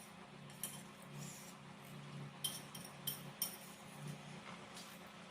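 Faint eating sounds from a meal of spicy instant noodles: a few light clicks and clinks of a utensil and dish, over a low steady hum.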